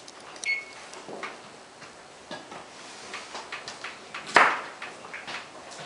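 Electric range's keypad giving a short beep as the oven timer is set, followed by scattered light clicks and knocks, with one loud sharp knock about four and a half seconds in.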